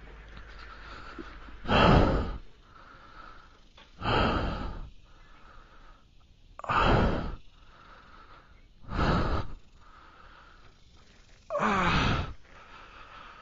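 Heavy, pained breathing of a motorcyclist winded after crashing. There are five loud gasping out-breaths, some with a falling groan, about one every two and a half seconds, with weaker in-breaths between.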